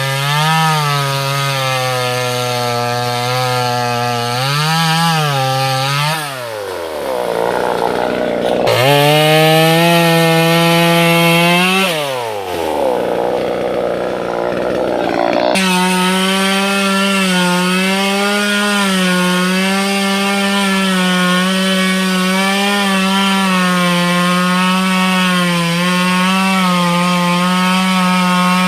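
Two-stroke top-handle chainsaw cutting through a teak trunk, its engine running steadily under load with small wavers in pitch. Twice it revs up sharply for a few seconds before dropping back, and for the last half it runs steady at a slightly higher pitch.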